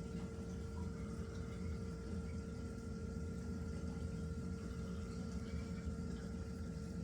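Reef aquarium pumps and circulating water: a steady low hum and water rush, with a constant tone held at one pitch.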